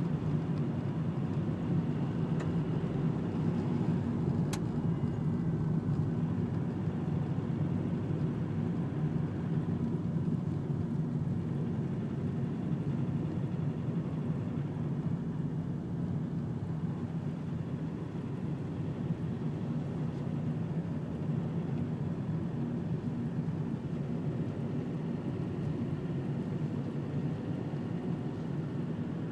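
Steady low rumble of a car's engine and tyres on the road, heard from inside the cabin while driving in slow traffic.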